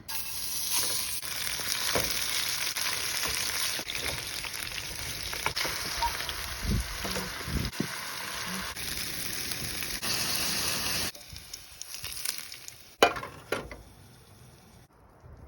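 Food frying in a hot pan, a dense steady sizzle that cuts off abruptly about eleven seconds in. Near the end come a sharp knock and a second, smaller one.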